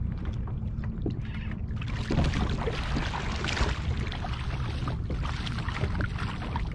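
Wind rumbling on the microphone and water lapping against a kayak on open water, with a louder rush of hissing, splashing water from about two seconds in until near the end.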